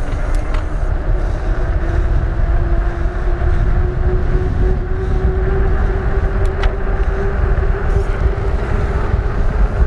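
Wind rushing over the microphone and the rolling noise of a fat-tyre e-bike coasting fast downhill on asphalt, with a hum that rises slowly in pitch as the speed builds.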